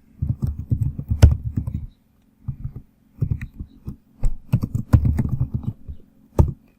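Typing on a computer keyboard: bursts of keystrokes with dull low thumps, broken by short pauses, over a faint steady hum.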